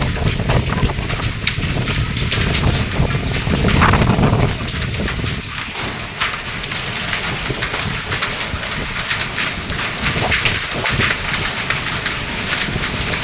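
Storm wind gusting hard and buffeting the microphone with a deep rumble, over a dense patter of rain on surfaces. The gusts are strongest in the first four seconds or so, then ease slightly.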